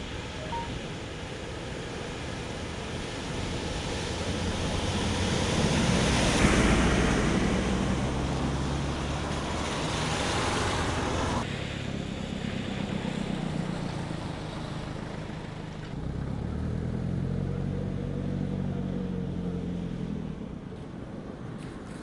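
A coach bus drives through floodwater covering the road, its engine and the rushing spray from its wheels growing louder to a peak as it passes about six seconds in. After an abrupt change near the middle, only the low running of vehicle engines remains.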